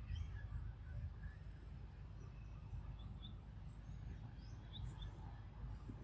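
Faint outdoor ambience: a low steady rumble with a few short, high chirps scattered through it, mostly past the middle.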